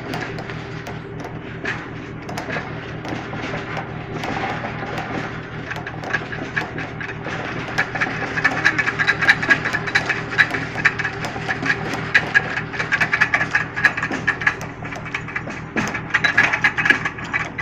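Fishing trawler's machinery: a steady low engine hum under rapid metallic clattering and ratcheting, which grows louder about halfway through.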